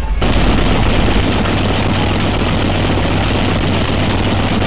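Pratt & Whitney R-4360 Wasp Major, a 28-cylinder four-row radial aircraft engine, running steadily on a test stand with its propeller turning. The engine sound cuts in sharply just after the start.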